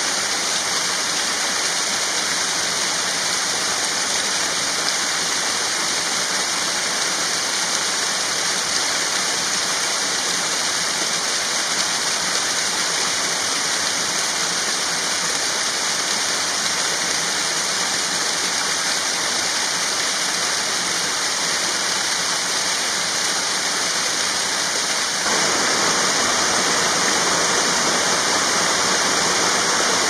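Rushing water of a small stream cascading over rocks, a steady, even rush. About 25 seconds in it changes abruptly to a fuller, slightly louder rush, as the sound of a waterfall takes over.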